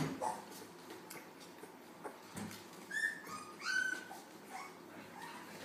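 Newborn puppies squeaking and whimpering while they nurse: two short high squeals close together about three seconds in, with fainter squeaks before and after.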